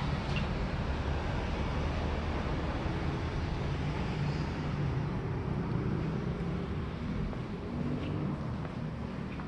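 Steady city street traffic noise, an even low rumble with no distinct events, easing slightly near the end.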